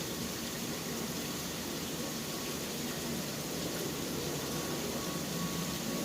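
Steady city ambience of falling rain mixed with a low rumble of traffic.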